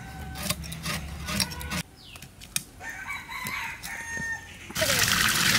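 Koi fish being scaled against a boti blade: quick rasping scrapes and clicks, with chickens clucking in the background. Near the end, water starts pouring and splashing in a steady hiss.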